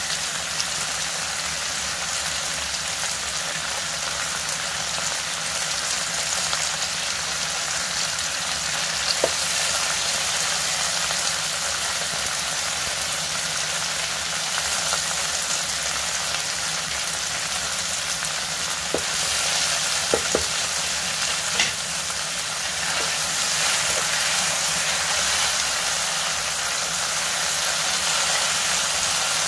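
Pork belly and kimchi sizzling steadily in an oiled frying pan, with a few sharp clicks of tongs and scissors against the pan.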